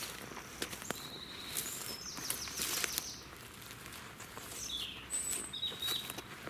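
Small songbirds chirping and calling, with short high whistled notes and quick falling calls. Under them are light rustling and scattered clicks of movement through brush.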